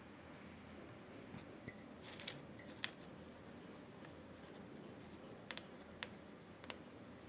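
Broken terracotta clay-pot shards clinking and clattering against each other as they are handled. A quick cluster of clinks comes about one and a half seconds in, and a few lighter clicks follow near the end.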